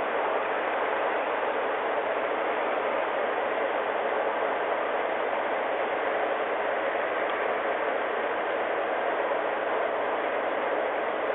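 Steady, unchanging hiss of static on a police dashcam's audio track.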